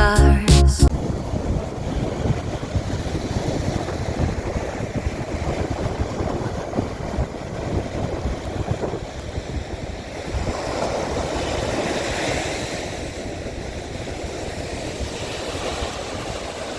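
Music cuts off within the first second. Then comes wind buffeting the microphone over the steady wash of sea waves, with a swell of surf noise about midway.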